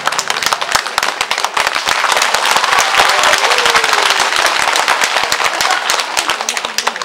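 Audience applauding, with dense, sharp hand claps close to the microphone. The last of the stage music ends about half a second in.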